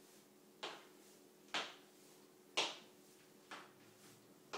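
Sneakered feet landing on a tiled floor as a person steps sideways over a low bar, right foot then left: five soft footfalls, about one a second.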